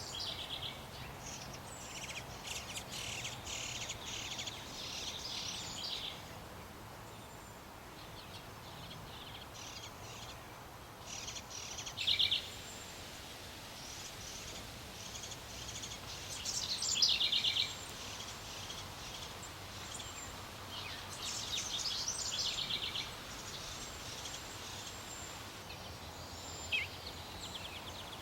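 Small songbirds chirping in short bursts of rapid, high notes every few seconds, over a steady outdoor background hiss.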